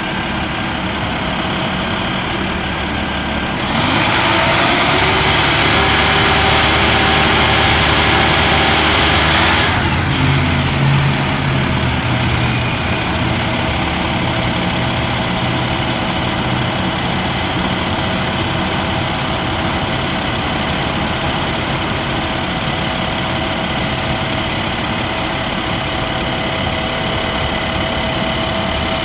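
Crane truck's MaxxForce 10 diesel engine running while the crane's hydraulics work the boom. About four seconds in, a loud rushing noise comes in over the engine and holds for some six seconds, then drops away, leaving the diesel running steadily at idle.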